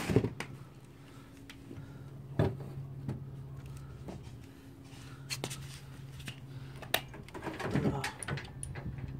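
Scattered knocks and clunks, with a scraping rustle near the end, as a GY6 scooter engine is pushed and shifted into place on a low metal shelf. A steady low hum runs underneath.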